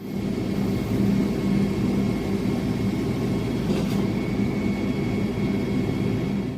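A motor running steadily, giving an unbroken drone with a low hum and a faint high whine.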